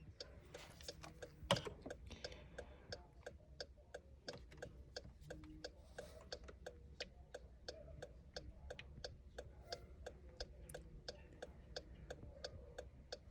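Jeep's hazard-light flasher ticking faintly and steadily in even, rapid clicks, with one louder click about a second and a half in.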